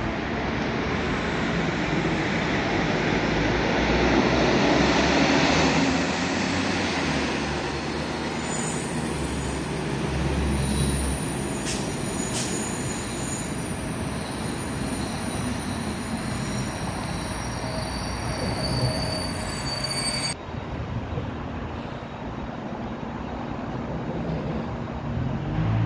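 Locomotive-hauled passenger train pulling into a station platform: a loud rumble of wheels on rails as the coaches come past, then high, steady metallic squealing as it slows to a stop. There are two short knocks about halfway through.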